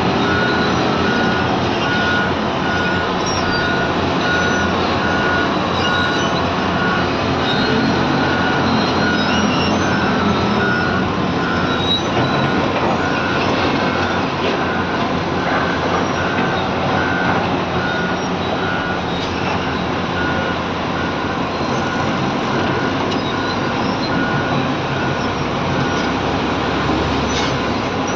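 Excavator running under load with its engine and hydraulics going steadily, while its travel alarm beeps repeatedly for roughly the first two-thirds.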